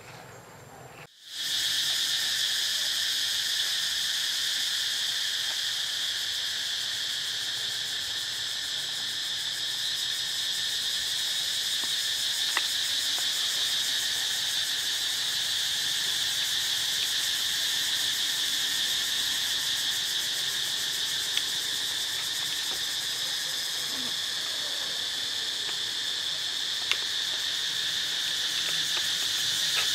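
Steady chorus of insects shrilling without a break, starting abruptly about a second in.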